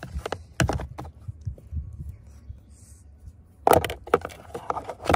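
Plastic spray bottles knocking and clattering against the hard plastic of a Nissan Kicks centre console storage bin as they are packed in. A few light knocks come about a second in, and the loudest clatter comes a little before the end.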